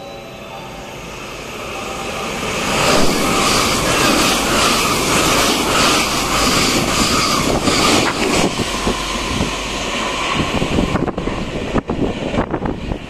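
Thunderbird limited express electric train passing through the station at speed without stopping, its wheels running on the rails. The noise builds over the first three seconds, stays loud for about five seconds, then fades as the train draws away, with wind buffeting the microphone near the end.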